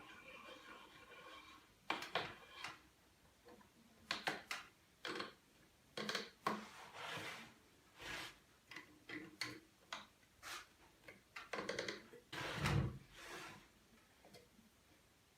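Wooden workpieces being handled and fitted: a series of separate light knocks, clicks and short rubs, the heaviest a dull clunk near the end.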